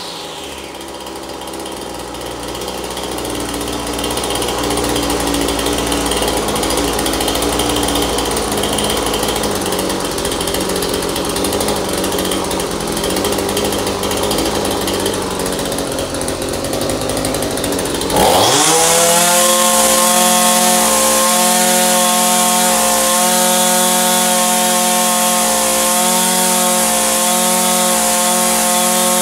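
Echo SRM-2620 string trimmer's two-stroke engine idling for about eighteen seconds, then throttled up quickly and held at a steady high speed.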